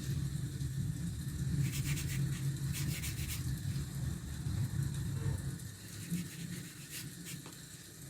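A low, steady rumble that fades about two-thirds of the way through, with a few brief scratchy sounds over it.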